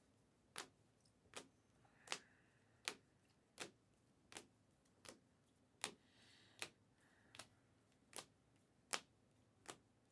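Faint, evenly spaced clicks, about one every three-quarters of a second, in an otherwise quiet room.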